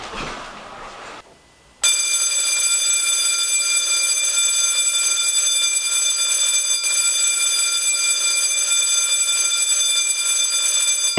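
Electric school bell ringing continuously, starting suddenly about two seconds in, after a faint rustle and a brief hush.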